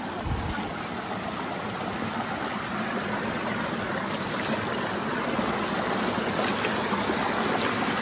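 Shallow forest creek rushing and splashing over rocks in a steady stream, growing slightly louder toward the end.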